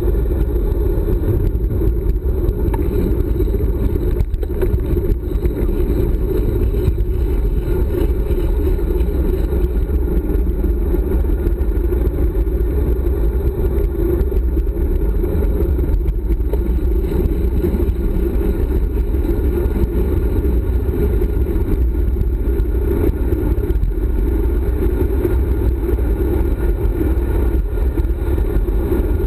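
Wind rushing over a handlebar-mounted GoPro's microphone during a fast road-bike descent, with the tyres running on asphalt: a steady, loud, low rumble.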